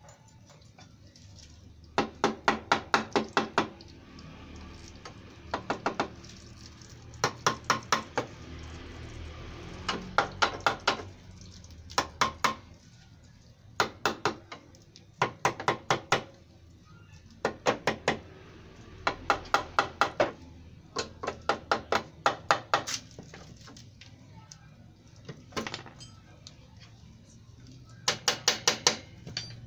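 Bursts of quick metallic clicks or taps, six to eight strikes at a time, repeating every second or two: metal tool work on a motorcycle being stripped for a clutch plate change.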